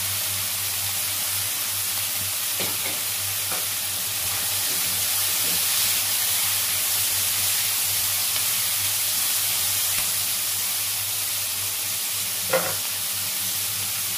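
Chopped vegetables (long beans, onion, carrot and chillies) sizzling steadily in oil in a non-stick wok while a wooden spatula stirs and scrapes them, with a sharp knock of the spatula near the end.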